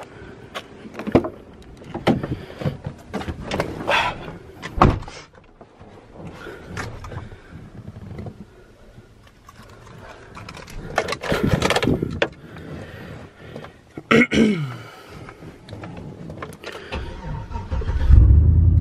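Clicks and knocks of someone unlocking and climbing into a Chevrolet Silverado pickup's cab, then the truck's engine starts about 18 seconds in and runs at a steady idle, much louder than anything before it.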